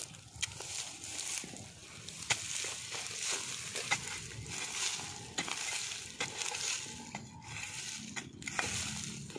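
Digging and scraping into dry, crumbly soil and dead grass stems with a hand tool: a crunching, rustling noise that comes in waves, with several sharp clicks between.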